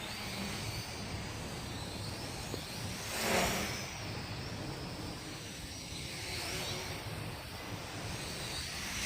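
Wind buffeting the microphone in a rumble, over the high whine of an MJX X600 hexacopter's motors and propellers, which drifts up and down in pitch as it fights the gusts. A stronger gust swells up about three seconds in.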